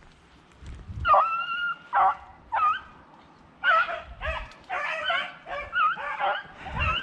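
Hunting beagles yelping and baying, giving tongue as they work a rabbit's scent through blackberry brambles. A long high call comes about a second in, then two short ones, then a quick, broken run of yelps from about halfway on.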